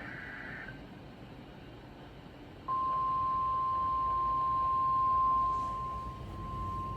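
A NOAA Weather Radio alert for a severe thunderstorm warning. It opens with a brief burst of the SAME digital header's buzzy data warble, then, about 2.7 seconds in, the steady single-pitch 1050 Hz warning alarm tone starts and holds.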